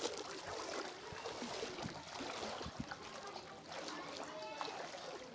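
Floodwater trickling and running over a breached river embankment, a steady crackling rush of water.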